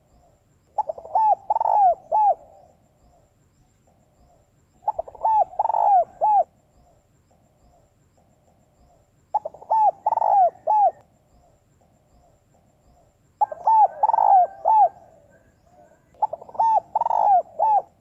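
Female spotted dove cooing: five phrases of three or four short rounded coos each, roughly every four seconds, with fainter cooing between the phrases.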